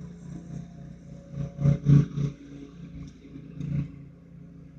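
Lawn-care crew's petrol equipment, lawn mowers and a leaf blower, running with a steady engine hum. It swells louder briefly a few times between one and two seconds in, and again near the end.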